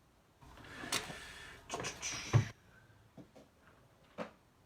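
A sealed trading-card box's packaging being torn open and handled for about two seconds, with a sharp thump at the end, followed by a few light knocks.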